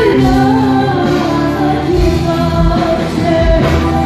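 Live band music with a woman singing into a microphone.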